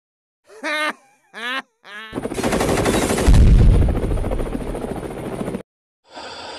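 Sound effect of rapid machine-gun fire and an explosion: a dense rattling burst that is loudest, with a heavy low rumble, about a second in, and stops suddenly about three and a half seconds after it starts. Just before it come three short pitched cries that bend up and down.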